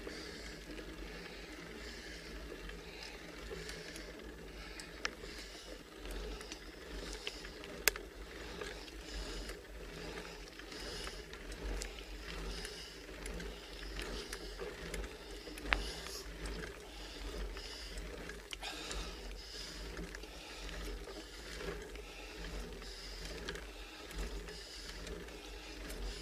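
A cyclist breathing hard in a slow, steady rhythm while pedalling up a very steep grade at a crawl, over a low, steady rumble from the bike and road. A few sharp clicks come through, near 5, 8, 16 and 19 seconds in.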